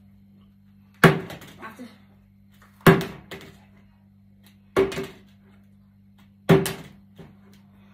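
A part-filled bottle flipped and landing on a wooden table top with a hard thud four times, about every two seconds, each thud followed by a lighter knock or two.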